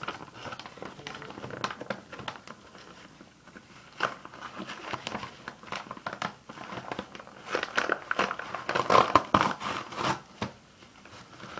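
Hands opening a trade parcel: the wrapping crinkling and tearing in irregular crackles, busiest about eight to ten seconds in.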